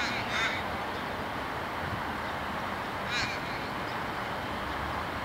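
A bird calling: two short calls at the start and a third about three seconds in, over steady background noise.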